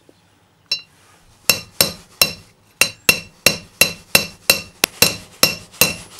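Hammer blows on a metal tube used as a driver, seating a new outer wheel-bearing race into a 1996 Dodge Ram 1500 front hub; each blow rings metallic. One lone blow comes first, then a steady run of about three blows a second, with the race going down but not yet fully seated.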